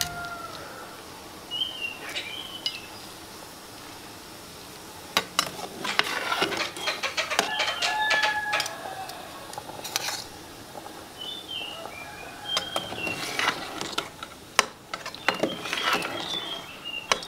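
A rooster crowing once, about seven seconds in, over short high bird chirps, with a few sharp clicks scattered through.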